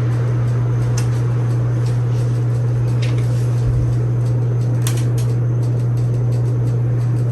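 A 52-inch Gulf Coast Tiara ceiling fan's capacitor-run AC motor running with a steady low hum, with a few faint ticks.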